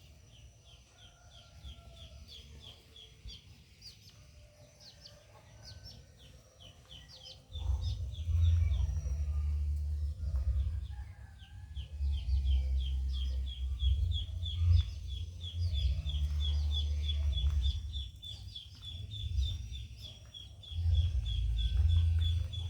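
Bird calls in a fast, even series of short high chirps, several a second, running on and off. From about seven seconds in, a loud low rumble comes and goes over them.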